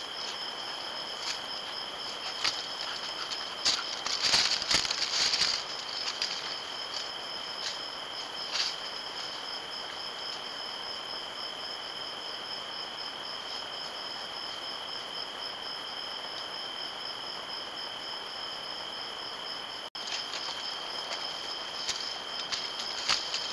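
Night insects, most likely crickets, trilling steadily in two continuous high-pitched tones, one of them pulsing. Brief rustling and clicks in dry leaves break in, loudest in a burst about four seconds in and again near the end.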